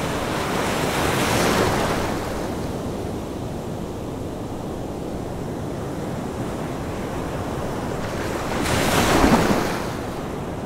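Ocean surf: waves breaking and washing onto a sandy beach, one surge swelling about a second in and a louder one near the end.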